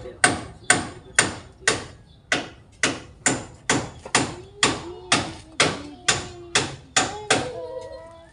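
Steady run of about seventeen sharp blows, a little over two a second, each ringing briefly before the next. A short held voice-like tone sounds near the end.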